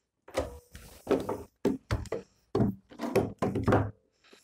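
One-handed quick-release bar clamps being squeezed tight and set against a pine panel on a wooden bench: a run of clicks and wooden knocks, about seven or eight in three and a half seconds.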